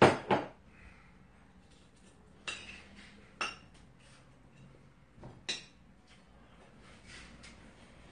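A spoon clinking and scraping against small ceramic bowls while eating: two sharp clinks right at the start, then a few more spread over the next few seconds.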